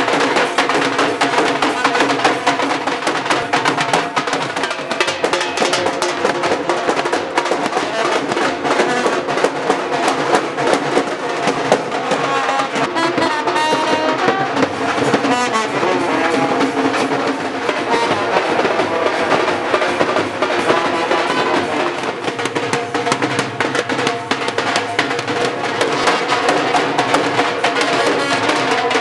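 Dhol drums beaten in a continuous dense rhythm while a brass band plays a melody over them.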